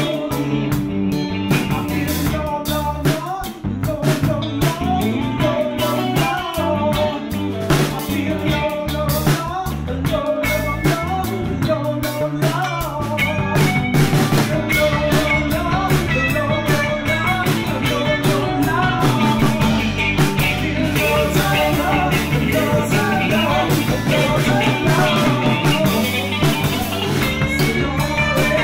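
A rock band plays an instrumental passage on electric guitar, electric bass and drum kit. The guitar plays a bending melody over steady drumming, and the bass fills out more strongly from about halfway through.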